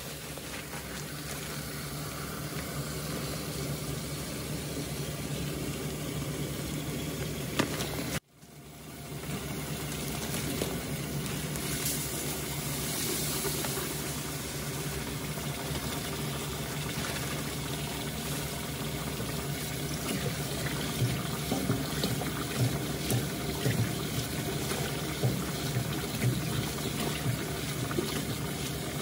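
Tap water runs steadily into a steel bowl in a stainless sink, with a steady low hum underneath. Partway through, rice is poured into the water. Later, hands swish and scrub the rice in the water, adding short splashy peaks.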